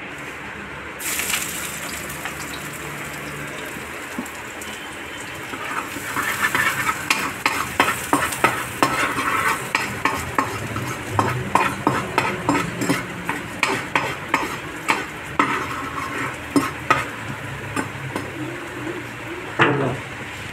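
Hot oil sizzling in a steel frying pan with finely chopped aromatics, starting about a second in. From about six seconds a steel ladle stirs and scrapes, clinking against the pan many times, with one louder knock near the end.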